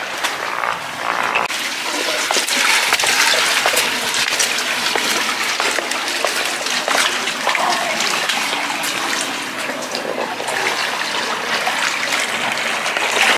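Water splashing and trickling: a steady rushing hiss with many small splashes and drips throughout.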